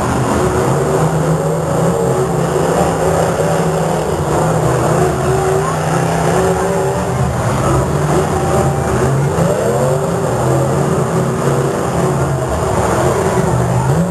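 Demolition derby cars' engines running and revving together in a loud, continuous din, with the pitch rising in places about eight to ten seconds in.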